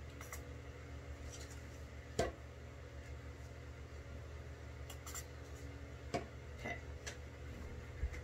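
Small handling sounds: a few light clicks and taps from a setting-spray bottle and makeup sponge being handled, over a steady low hum.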